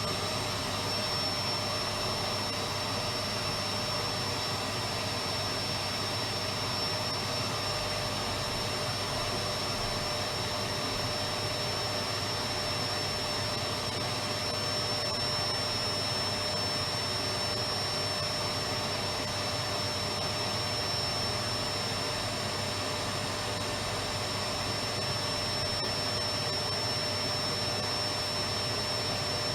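Electric vacuum cleaner running continuously: a steady, unchanging whooshing motor hum with a high whine.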